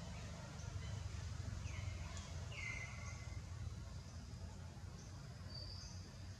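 A few faint high chirps and a brighter, slightly falling squeaky call about two and a half seconds in, from animals in the trees, over a steady low rumble.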